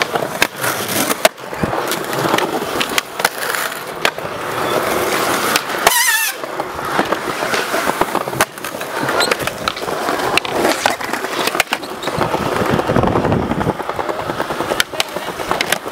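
Skateboards rolling over smooth concrete, a steady wheel roar broken by many sharp clacks as boards are popped for tricks and land.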